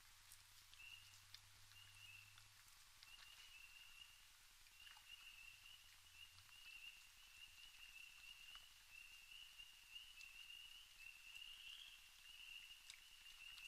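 Faint night chorus: a steady high-pitched trilling, broken into short stretches at first and then almost unbroken, with scattered small clicks of a raccoon eating seed on a wooden deck railing.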